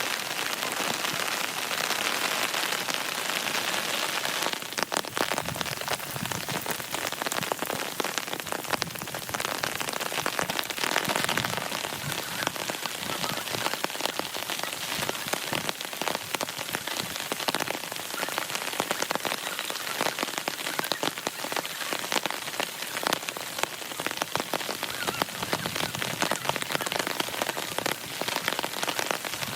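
Steady rain falling, with many separate drops heard hitting close by; the drop hits become sharper and more distinct about five seconds in.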